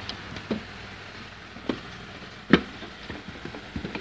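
Several sharp plastic-on-glass clicks and knocks as the blender's green motor head is handled and seated on its glass chopper bowl, the loudest about two and a half seconds in. The motor is not running.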